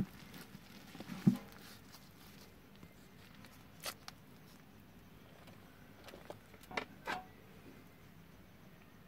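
Scattered handling sounds as hands work rolled taro leaves, coated in gram-flour paste, on a steel plate. Two low thuds near the start are the loudest, with a few sharper clicks around four and seven seconds in.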